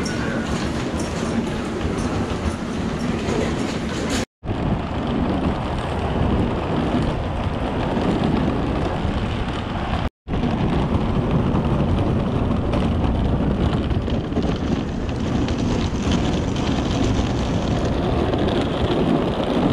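Hard-shell suitcase wheels rolling and rattling over tiled floor and then pavement, a steady rumble. It drops out twice for an instant.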